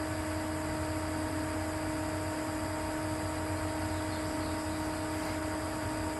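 An electric motor running steadily: a constant hum with a few fixed tones over a light hiss, without surges or cutting chatter.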